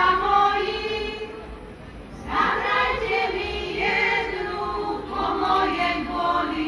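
A group of women in a Slovak folk choir singing a folk song together, with a brief dip between phrases about two seconds in before the next phrase starts.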